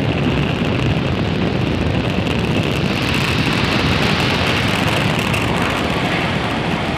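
Falcon 9 first stage's nine Merlin 1D engines firing during ascent: a steady, dense rumble with a hiss on top, easing slightly near the end.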